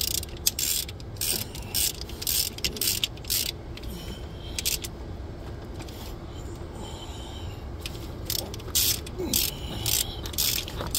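Hand socket ratchet clicking in quick runs as it drives an alternator mounting bolt, pausing for a few seconds about four seconds in before clicking again.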